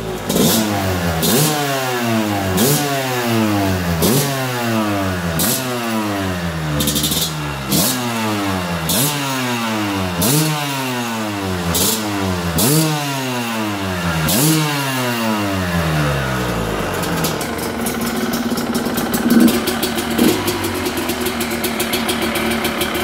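Two-stroke enduro motorcycle engine blipped on the throttle about a dozen times, each rev rising sharply and falling back, then settling to a steady idle for the last several seconds.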